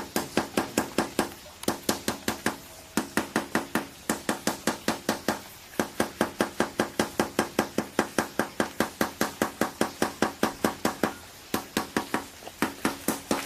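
Claw hammer tapping rapidly on the rim of a PVC drain pipe set through a tarpaulin pond liner, about five strikes a second in runs broken by short pauses. It is shaping the pipe's edge to clamp the tarp around the drain.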